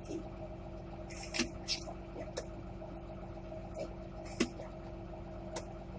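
Tractor engine idling steadily, heard from inside the closed cab as a low hum, with a few short sharp clicks from the cab scattered through it.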